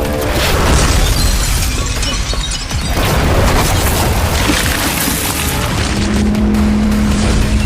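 Dramatic soundtrack music mixed with booming impact and explosion sound effects, heavy in the low end. A steady low held tone comes in about six seconds in.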